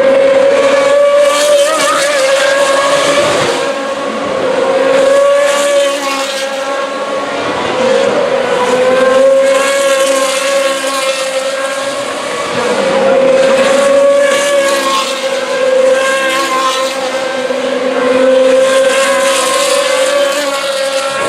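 Formula 2 race cars' naturally aspirated V8 engines running at high revs. The engine note holds steady, then dips and climbs again roughly every four seconds.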